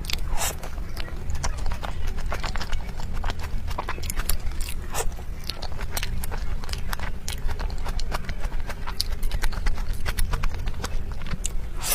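Close-miked chewing of soft sweets: a dense, irregular run of wet mouth clicks and smacks over a steady low hum.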